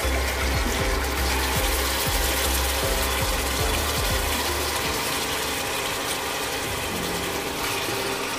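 Chicken pieces frying in oil in a stainless steel pot, a steady sizzle, with the steady hum of the induction cooker under it. A low rumble drops away about four seconds in.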